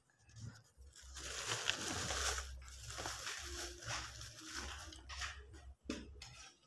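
Rustling and scraping handling noise as the phone is propped up against a plastic basin, fading after a few seconds, then a short clatter of a metal spatula in a wok on the stove near the end.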